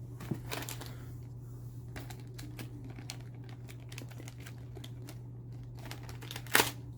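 Light rustling and clicking of the new motor's packaging and small parts being handled, over a steady low hum, with one sharp click near the end.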